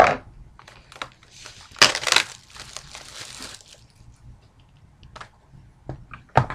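Plastic wrapping on a sealed trading-card box crinkling and tearing as the box is opened, loudest for about a second and a half starting about two seconds in, with a sharp knock at the start and a few short knocks near the end.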